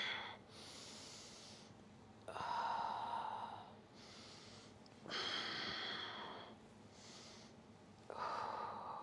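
A woman's slow, deep breathing close to the microphone during yoga movement. A louder breath comes about every three seconds, with fainter breaths between.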